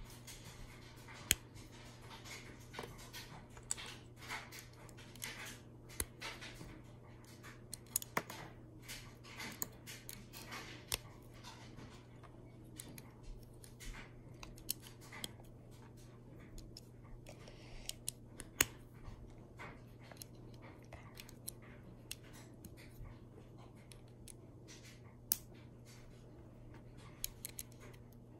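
Plastic K'nex rods and connectors clicking and snapping together as they are handled and fitted by hand: sharp clicks at irregular intervals, over a faint steady low hum.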